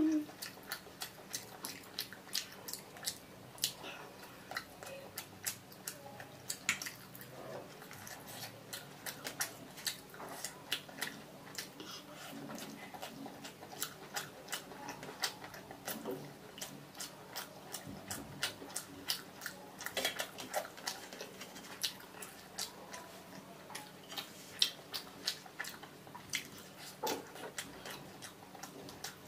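Close-miked eating by hand: fingers mixing and pressing rice and fish on a steel plate, with chewing, heard as a steady run of small wet clicks.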